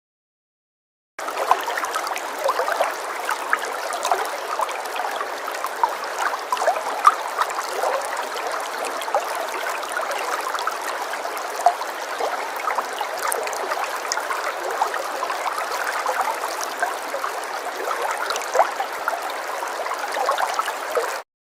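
Falling water trickling and splashing steadily, a dense patter of small splashes over a running-water hiss. It starts about a second in, after a moment of silence, and cuts off shortly before the end.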